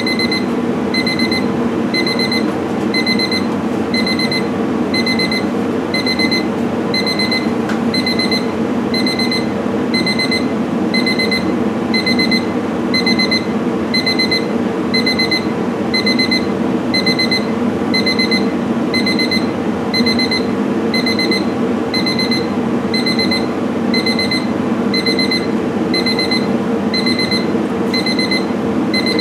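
Electronic alarm beeping in an even rhythm, about three short high beeps every two seconds, over a steady low hum.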